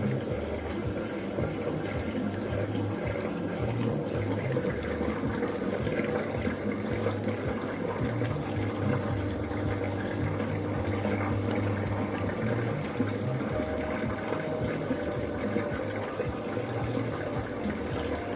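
Bean-batter fritters (akara) deep-frying in hot groundnut oil: a steady sizzle with a constant scatter of small crackles and pops.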